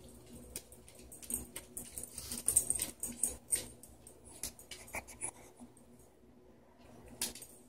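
A pet lapping and splashing water in a large metal bowl: irregular wet clicks and splashes, with a quieter pause about six seconds in.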